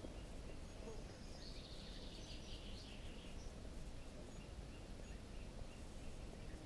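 Faint high bird chirping, a quick cluster of short notes lasting about two seconds, starting about a second and a half in, over steady low outdoor background noise.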